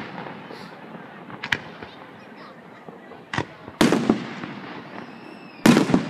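Aerial firework shells bursting: two sharper, smaller cracks, then two loud booms about four and six seconds in, each trailing off in echo.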